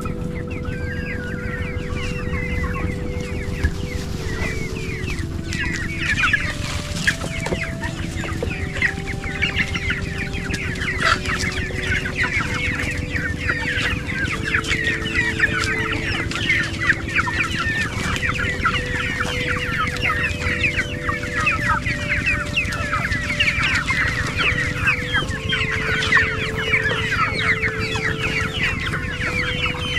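A flock of young chickens clucking and cheeping as they feed on scattered rice: a dense chatter of many short, high, overlapping calls that grows thicker about five seconds in.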